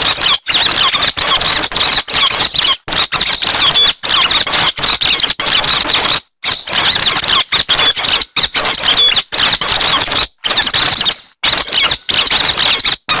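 Hec xoan bird song used as a trapping lure: a dense, rapid stream of high squeaky chattering notes, cut by several abrupt short breaks.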